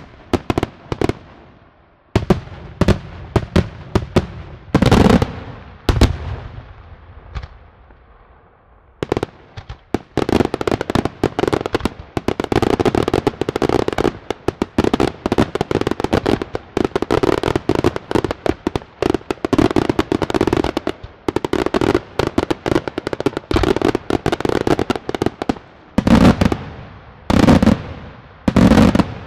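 Daytime aerial fireworks bursting. Scattered sharp bangs give way, after a short lull, to a dense, continuous run of rapid reports from about nine seconds in, with a few louder bangs near the end.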